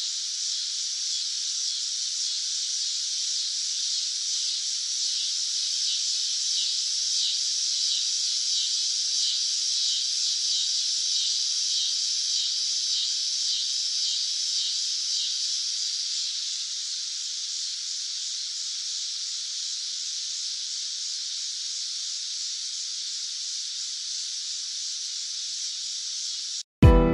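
Cicadas buzzing: a steady high-pitched drone that swells a little in the middle with a faint pulsing, then cuts off suddenly near the end.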